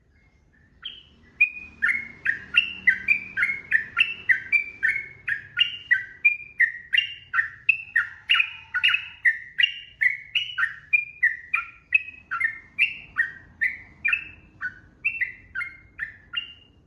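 Yellow-vented bulbul (trucukan) singing a long, unbroken run of short, rising-and-falling whistled notes, about two to three a second.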